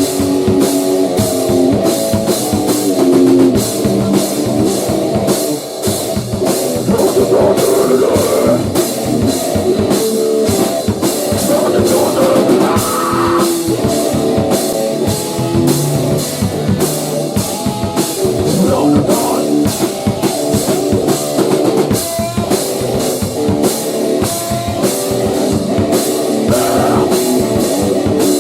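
A band playing grunge-style hardcore rock, with a drum kit keeping a steady cymbal beat under electric guitar.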